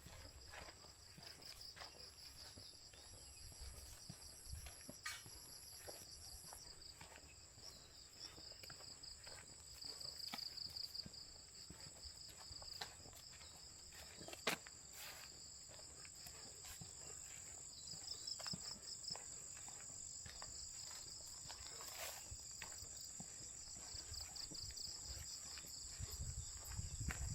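Insects calling at dusk: a steady high-pitched drone with a pulsing trill just below it that swells and fades, and scattered faint clicks.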